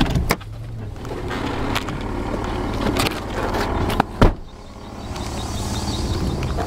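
Mitsubishi Pajero's engine running steadily while it drives over rough off-road ground, with several sharp knocks and rattles from the bumps, the loudest a little over four seconds in.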